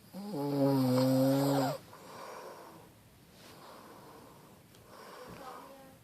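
Grandmother snoring in her sleep. One loud, pitched snore lasts about a second and a half, followed by a softer breath out and quieter breathing.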